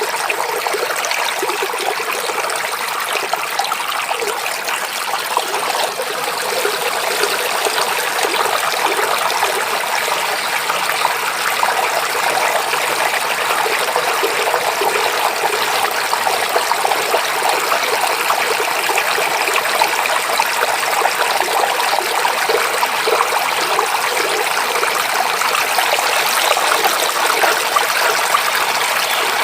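A stream running over rocks with a steady, even rush of water.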